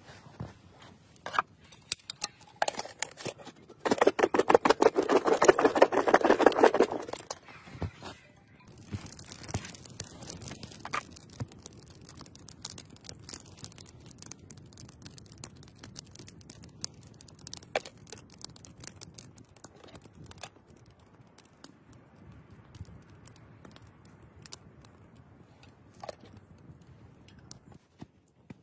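Food and camp cookware being handled on a wooden board during cooking prep. A loud run of rapid ticks lasts about three seconds near the start, followed by faint scattered clicks and knocks.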